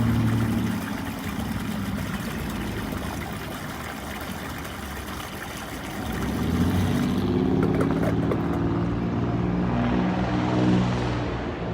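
Steady hiss of rain with a vehicle engine humming under it. About seven seconds in, the hiss thins out and the engine hum comes forward.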